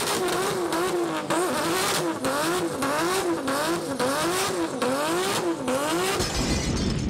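Car engine revving over and over, its pitch climbing and dropping about twice a second; a deep rumble comes in near the end.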